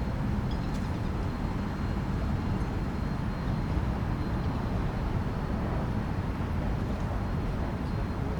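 Steady low rumble of distant city traffic, with a few faint short high chirps over it.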